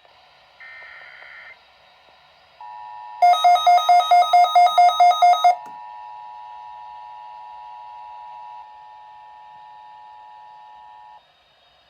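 Emergency Alert System tones announcing a Child Abduction Emergency (AMBER Alert). A brief warbling data burst comes first, then the steady two-note EAS attention signal starts about two and a half seconds in. For about two seconds a loud train of rapid beeps, roughly five a second, sounds over it. The attention tone holds until about eleven seconds in, then cuts off.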